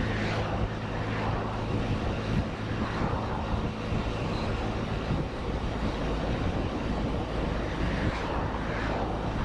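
Can-Am Spyder RT Limited three-wheeler on the move: a steady engine hum under constant wind and road noise, the engine hum fading a couple of seconds in while the wind rush carries on.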